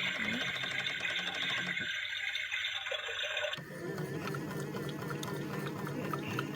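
Toy washing machine playing its washing-cycle sound effect: a steady rush of water, which changes abruptly to a different, fainter sound about three and a half seconds in.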